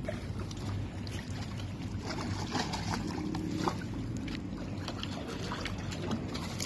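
Water splashing and dripping in scattered small splashes, over a low steady hum.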